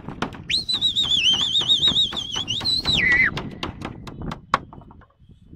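A man whistling shrilly through his fingers to his flock of pigeons in flight: one long high whistle of about three seconds that warbles in the middle and drops in pitch at the end. Scattered sharp clicks and knocks sound through the first few seconds.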